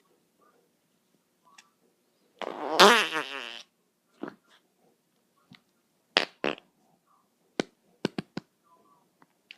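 A fart sound about two and a half seconds in, lasting a bit over a second with a rapidly wobbling pitch. Several short clicks and pops follow.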